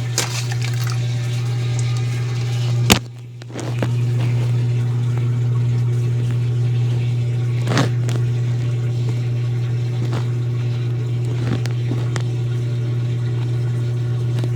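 Consul Facilite 10 kg washing machine in its wash stage, its motor running with a steady hum that cuts out briefly about three seconds in and then starts again. A few sharp clicks come through.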